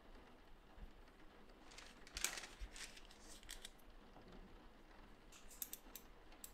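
Faint rustle of a sheet of printed transfer paper being handled and laid flat on a cutting mat, then a few short sharp clicks near the end as a snap-off utility knife is handled.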